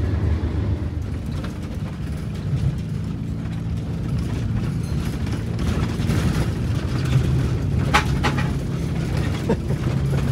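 Cab interior of a Wanderlodge motorhome under way: the diesel engine running with a steady low drone, with a few sharp clicks and rattles from the cab fittings in the later part.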